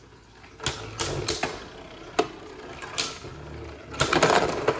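Beyblade Burst spinning tops whirring and clashing in a plastic stadium, with sharp clicks at each hit. About four seconds in there is a denser clatter as one top bursts apart.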